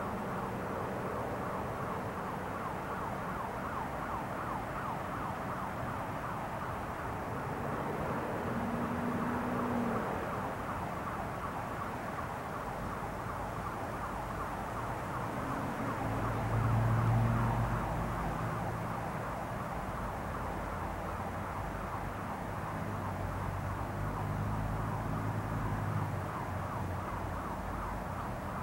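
Distant vehicle traffic: a steady outdoor hum and hiss with low engine tones swelling three times as vehicles pass, the loudest about midway.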